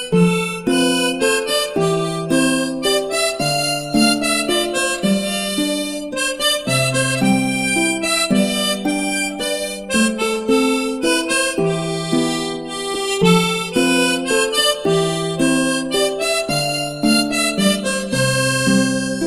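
Instrumental background music: a melody of held notes that change every half second or so, over a busy rhythmic accompaniment.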